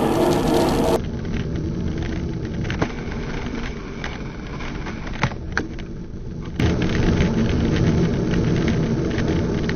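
Road noise while cycling in traffic: wind on the microphone and passing cars. The sound drops abruptly to a quieter stretch about a second in, with a few sharp clicks, and jumps back to the louder rumble about two-thirds of the way through.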